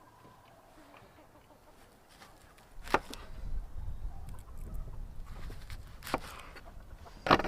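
Three sharp knocks, about three seconds apart, the last the loudest, over a low rumble that starts a few seconds in.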